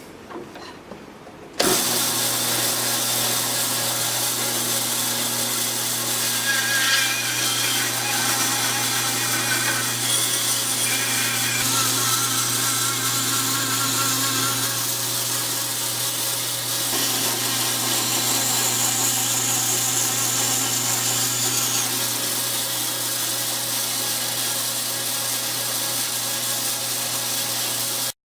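Bandsaw running and cutting out a small handle shape: a steady motor hum with blade noise, its tone shifting as the cut goes. It starts suddenly a couple of seconds in and stops abruptly near the end.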